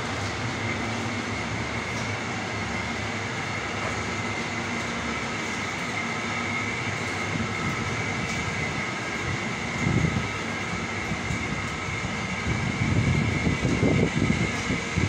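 Palm kernel oil expeller plant with electric motors running: a steady mechanical drone with a constant high whine. From about ten seconds in, irregular low rumbles come and go over it.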